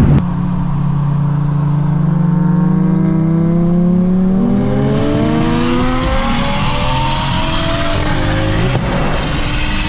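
Single-turbo BMW N54 inline-six accelerating hard, its pitch climbing steadily, with breaks in the note around six and eight seconds in and a faint high whine rising partway through. A sharp click sounds right at the start.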